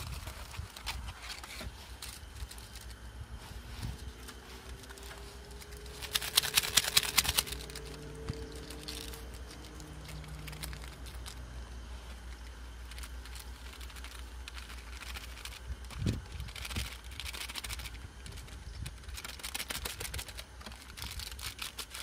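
Plastic wrapping and the paper lid of an instant cup-noodle being crinkled and peeled back by hand, with a loud burst of crinkling about six seconds in and scattered small crackles after. A steady low rumble sits under it.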